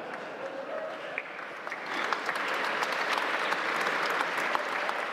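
Audience applauding, swelling about two seconds in and easing off near the end.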